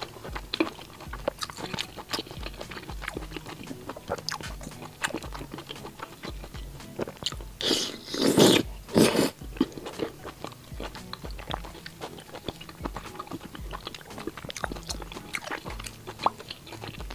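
Close-miked chewing and biting of soft, chewy braised pork intestine, with many small wet mouth clicks. There are two louder wet sounds about eight and nine seconds in, as a piece is taken into the mouth.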